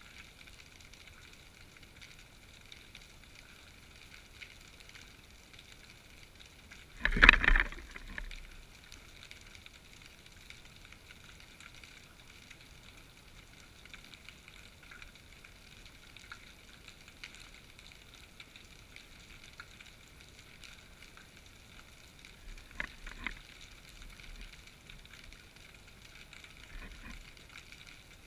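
Underwater sound heard through a camera's waterproof housing hanging on a basket-fishing rig: a faint, steady crackling hiss. There is one loud knock about seven seconds in and two softer knocks near the end, as the housing is jostled on the rig.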